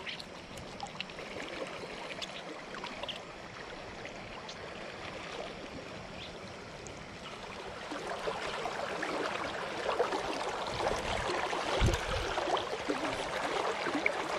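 Creek water running and babbling over a shallow riffle, growing louder a little past halfway, with a brief low thump about three-quarters of the way through.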